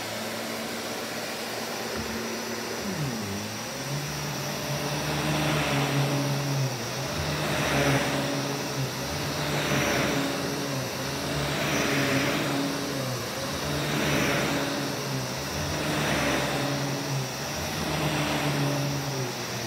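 Vax Commercial VCU-03C upright bagged vacuum cleaner running while pushed back and forth over carpet. Its motor hum drops in pitch about three seconds in, then the rushing air swells and fades about every two seconds with each stroke.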